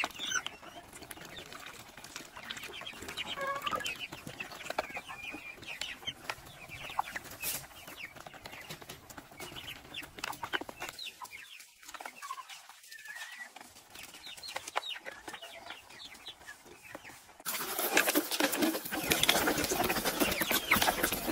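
Chickens clucking softly while feeding at a flock feeder, with scattered pecking taps. About three-quarters of the way in it turns louder and busier: rapid close-up pecking taps on the grain tray, with clucks.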